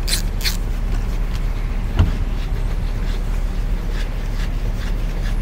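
Socket ratchet clicking a few times on a rocker-cover bolt of a Rotax aircraft engine as the cover is taken off, with a single sharp metal knock about two seconds in, over a steady low hum.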